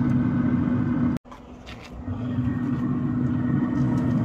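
Steady mechanical hum with one strong steady tone over a low rumble. It cuts out abruptly about a second in, returns faintly, and is back at full level about a second later.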